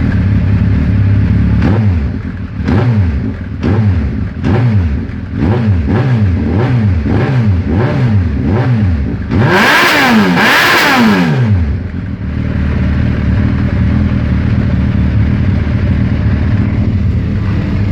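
Retro motorcycle engine idling, then blipped repeatedly about once a second. Near the middle come two longer, harder revs, the loudest part, before it settles back to a steady idle.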